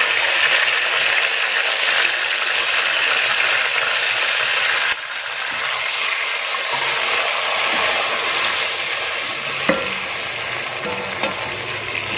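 Yogurt-marinated chicken pieces sizzling loudly as they go into hot oil with whole spices in a pot and are stirred with a wooden spoon. The sizzle eases a little about five seconds in, and a couple of light knocks of the spoon come near the end.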